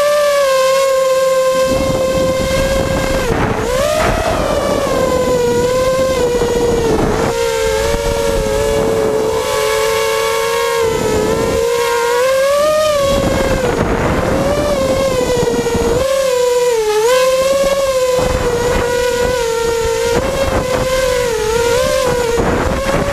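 Multirotor FPV drone's electric motors and propellers whining steadily, pitch dipping and rising several times as the throttle changes, with a hiss of air over the onboard camera's microphone.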